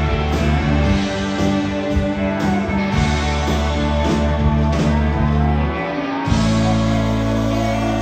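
Live rock band playing, with guitars and a steady beat, and no singing; about six seconds in the band settles into a long held chord.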